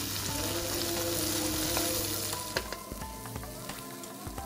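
Chopped onion, ginger, garlic and green chilli sizzling in hot oil in a pan, stirred with a wooden spatula. The sizzle eases about two and a half seconds in, with a few sharp taps and scrapes of the spatula on the pan.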